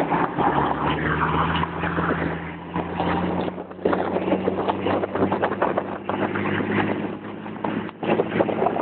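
Car engine running steadily at speed, heard from inside the moving car with heavy wind and road noise over it.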